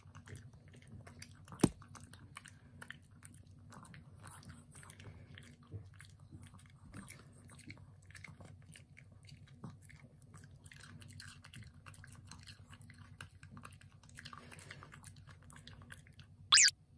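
Small dog, a Shih Tzu mix, chewing raw red bell pepper with wet smacking and many small crunching clicks over a low steady hum. There is a sharp click about a second and a half in and a short, louder noise near the end.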